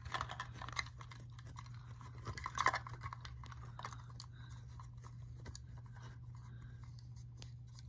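Handling noise of LEGO pieces being pushed and set down on carpet: soft scratchy rustling and a few light plastic clicks, busiest in the first few seconds with a louder rustle about two and a half seconds in. A steady low hum runs underneath.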